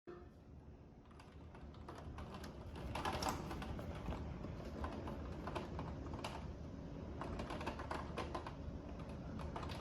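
Heavy thunderstorm rain striking a hard surface close to the microphone: a steady wash with many irregular sharp taps and a low rumble underneath, building up over the first few seconds and then holding steady.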